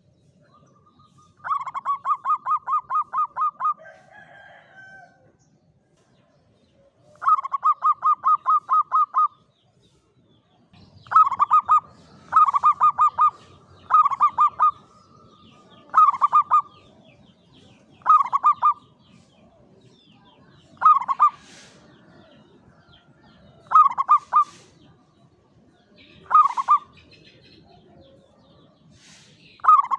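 Zebra dove (perkutut) cooing: two long runs of rapid, rolling notes, then shorter bursts of a few notes repeated every couple of seconds.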